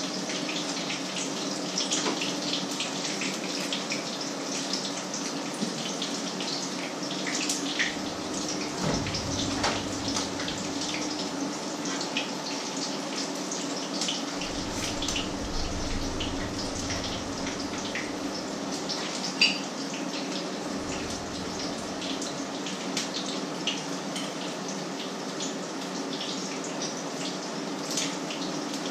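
Food frying in hot oil in two frying pans: a steady sizzle dotted with frequent small crackles and pops, over a low steady hum.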